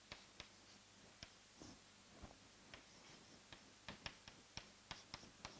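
Chalk tapping and scraping on a blackboard as an equation is written: faint, irregular sharp taps, about fifteen of them, with soft room tone between.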